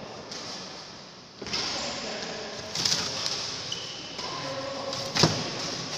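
Badminton rackets hitting the shuttlecock during a rally, in sharp separate strikes; the loudest hit comes about five seconds in.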